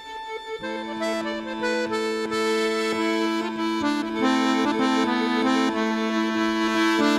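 Accordion coming in about half a second in with a held low bass drone and an improvised melody in A minor, 6/8 time, stepping above it, after a quiet held note.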